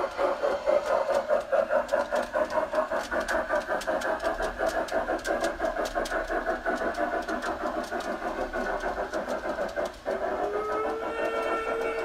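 Model steam locomotive running with a fast, even chuff. About ten seconds in the chuffing breaks off and a steady whistle starts and holds.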